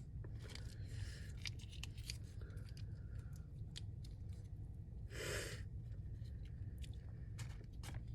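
Close-miked chewing of fried food: wet mouth clicks and smacks at an uneven pace, with a short breathy rush about five seconds in.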